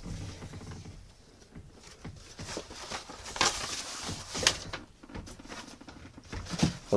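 Rustling and handling noises from a paper delivery packet being searched through, with two short, louder rustles about three and a half and four and a half seconds in.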